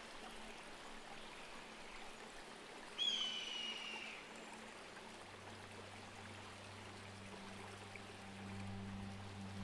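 Faint, steady rush of flowing river water. About three seconds in, a single high call sounds, falling slightly in pitch over about a second, and low sustained music tones fade in from about halfway.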